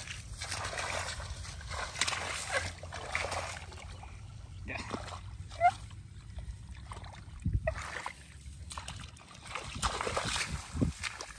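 Shallow muddy water splashing and sloshing in irregular bursts, as a barefoot person wades through a flooded rice-field ditch and scoops and grabs into the water with his hands.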